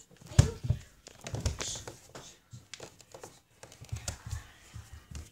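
Irregular soft bumps, knocks and light crinkly rustles close to the microphone, the loudest knock about half a second in.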